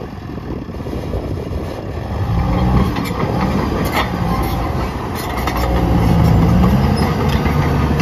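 New Holland D95B XLT hydrostatic crawler dozer's diesel engine running as the machine drives and turns. The engine note strengthens about two seconds in and rises louder under load about six seconds in, with a few short clanks from the steel tracks.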